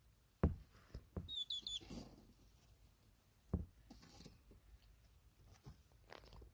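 A male hedgehog's quick run of about four high, squeaky chirps, made as he smells his mate's scent, among a few soft thumps as he noses around; the loudest thump comes near the start.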